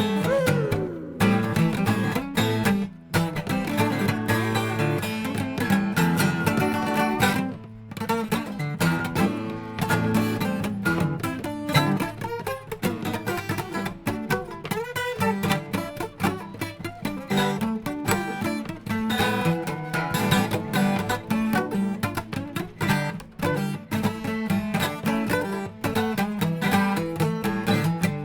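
Instrumental break of a song, led by guitar, with a few brief gaps in the first eight seconds.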